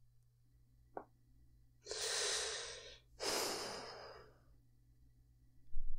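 A man breathing heavily twice, the second a long fading sigh of frustration, after a small mouth click about a second in.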